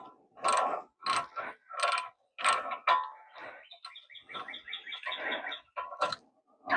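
Ratchet wrench backing out a rear brake caliper bolt: short ratcheting strokes about twice a second, then a fast, even run of pawl clicks near the middle.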